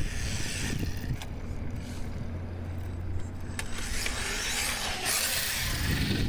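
Hosim X25 1/8-scale four-wheel-drive RC car being driven hard, its brushless motor and tyres running over the ground, with a few sharp clicks and knocks.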